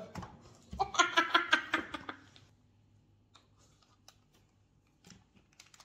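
A child giggling for about a second and a half, then a few faint clicks as he handles and loads a toy Nerf blaster.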